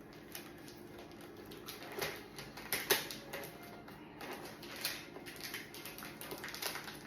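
Scattered rustles, crinkles and light knocks of cardboard and clear tape being pressed and fitted onto a hair dryer by hand, loudest about 3 seconds in.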